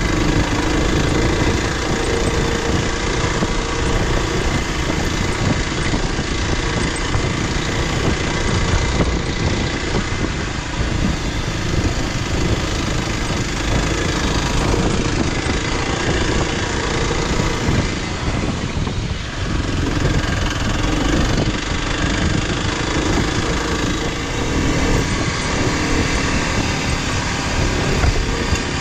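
Motorcycle engine running steadily while riding, mixed with heavy wind noise on the microphone.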